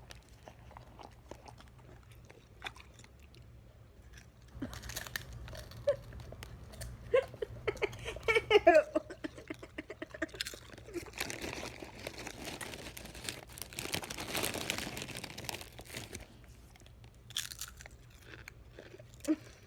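Potato chips being crunched and chewed up close: irregular dry crackles, heavier in the middle of the stretch. A short pitched vocal sound breaks in around eight seconds.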